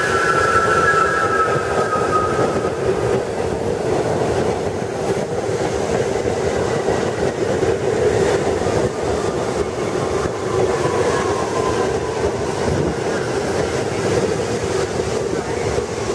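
New York City Subway train, R68A cars, running past along the platform: a steady rumble of wheels on rail and traction motors, with a falling wheel squeal that fades out over the first few seconds.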